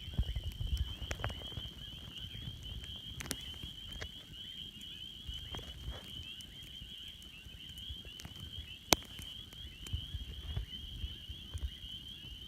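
Wood campfire crackling, with irregular snaps and pops over a low rumble of flame, and one sharp loud pop about nine seconds in. A steady high-pitched trilling night chorus runs behind it.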